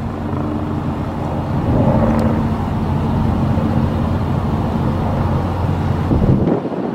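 A nearby engine running with a steady low hum. It grows louder over the first couple of seconds and cuts off abruptly near the end.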